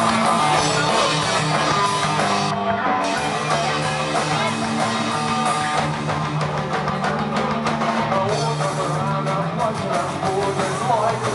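Rock band playing live: electric guitars over a drum kit, at a steady loud level.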